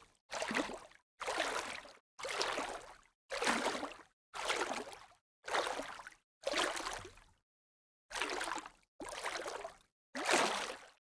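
Light splashing of water, about ten short splashes, roughly one a second, each fading out and cut off to silence before the next, with a slightly longer pause about two-thirds of the way through.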